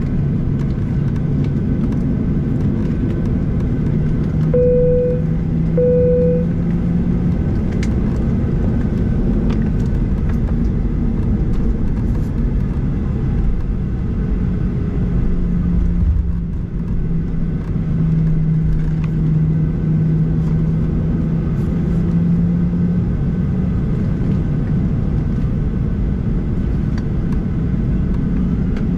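Cabin noise of a Boeing 737-800 taxiing, heard over the wing: its CFM56-7B engines running at taxi thrust under a steady low rumble and hum. Two short identical beeps about five seconds in.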